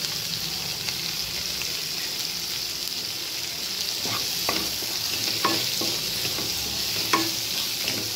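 Sliced onions sizzling in hot sesame oil in a pan while being stirred with a spatula, a steady hiss of frying. A few short knocks and scrapes of the spatula against the pan come about four, five and seven seconds in.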